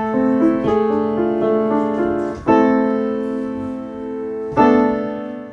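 Background piano music: sustained notes with loud chords struck about two and a half seconds in and again near the end.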